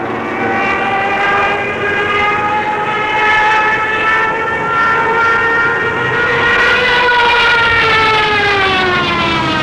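Single-engine propeller plane's engine droning in a steady tone with many overtones. The pitch creeps up slightly, then falls over the last few seconds, as in a fly-past.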